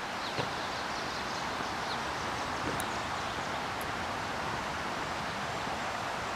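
Steady rushing outdoor ambience, an even noise with no engine or voice in it, and a faint click about half a second in.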